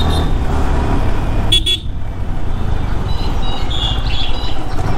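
Yamaha R15 V3 motorcycle being ridden: its 155 cc single-cylinder engine running under steady wind rumble on the microphone. A short high-pitched toot comes about one and a half seconds in, and a few brief high tones follow near the end.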